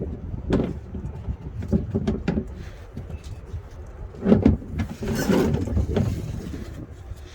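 Scattered knocks and clatter of tools and parts being handled during work on a vehicle, the loudest knock about four seconds in, followed by a brief hissing rustle, over a steady low rumble.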